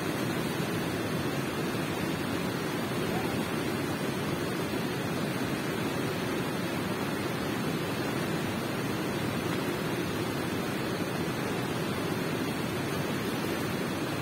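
Steady, unbroken rush of flowing water in a cave, low and even, with no separate drips or splashes.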